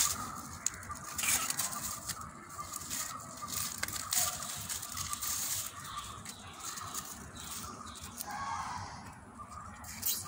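Dry maize stalks and papery leaves rustling and crackling as they are pulled and handled, with many short sharp crackles.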